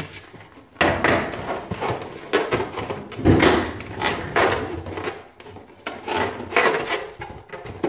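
Inflated latex heart balloons rubbing and squeaking against the fingers while one balloon's neck is tied in a knot: a string of uneven rubbing scrapes.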